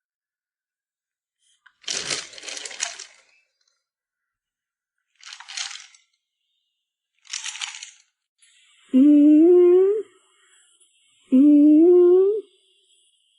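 Three short, hissy noise bursts, then a voice humming two short phrases, each about a second long and stepping upward in pitch.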